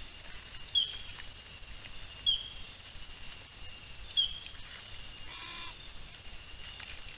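Forest sounds picked up by a trail camera: a short sharp high chirp that drops slightly in pitch, three times about every 1.5 to 2 seconds, over a steady high hum, with a brief buzzy call about five and a half seconds in.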